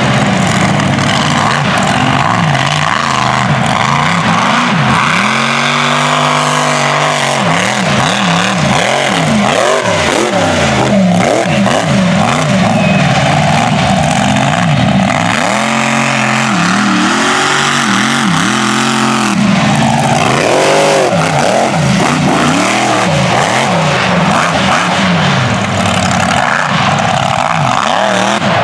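Mega truck's big engine revving hard and letting off again and again, its pitch swinging up and down many times as it drives the dirt obstacle course.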